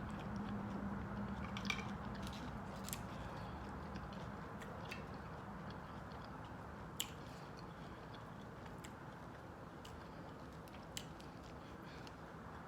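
A person chewing and biting into a salad close to the microphone, with scattered sharp clicks from the mouth and food.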